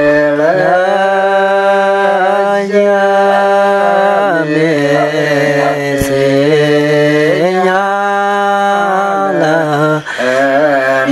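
A man's solo voice chanting a Karen poem in long, drawn-out notes, the pitch stepping and sliding between held tones. There are short breaks for breath between phrases.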